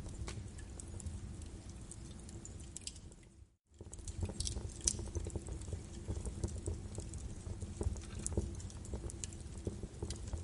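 Birch-wood fire in a fireplace crackling, with frequent sharp pops over a steady low rumble of the flames. The sound drops out completely for a moment about three and a half seconds in.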